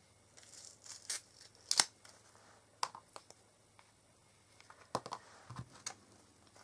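Backing paper being peeled and torn off sticky adhesive pads, in short bursts of tearing and crinkling mixed with sharp clicks and taps. The loudest tear comes just under two seconds in, and more follow around five seconds in.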